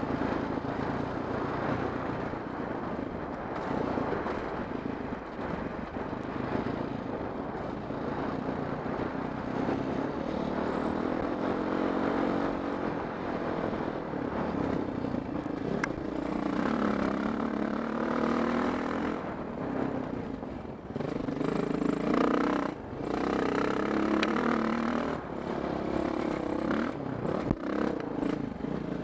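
Honda CRF450X's single-cylinder four-stroke engine running as the dirt bike is ridden along a trail, its pitch rising and falling with the throttle. In the second half the revs swing more, with a few brief sharp drops as the throttle is shut off.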